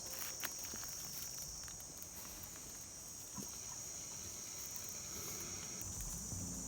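Steady high-pitched chorus of insects trilling without a break, with one sharp click about half a second in.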